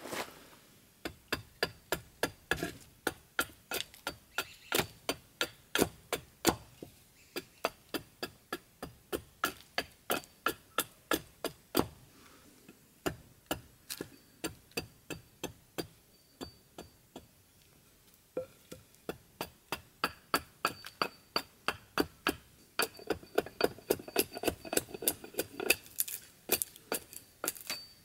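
Small hatchet chopping the corners off a green tan oak handle blank held upright on a chopping block: quick, light chops, about two or three sharp knocks a second, with a couple of short pauses.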